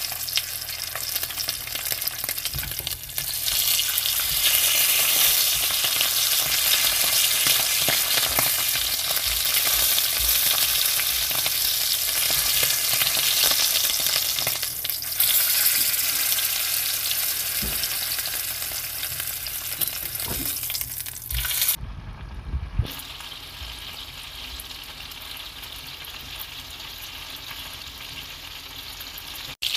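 Bone-in steak sizzling hard in hot oil in a pan, a dense crackling hiss, with a few low knocks. About 22 seconds in the sizzle cuts off for a moment and comes back quieter: a steak frying in foaming butter.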